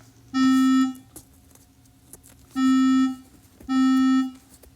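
Electronic alarm tone from a micro:bit smoke-alarm program, a low buzzy note beeping in a code-3 (temporal-three) pattern. The last beep of one group is followed by a pause of about a second and a half, then three more beeps about a second apart, the last starting near the end. It is the alarm triggered by a temperature reading turned up past the programmed 30-degree threshold.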